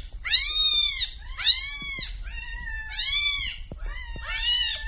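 Cats meowing: long meows that rise and fall in pitch, about one every second and a half, with several meows overlapping near the end.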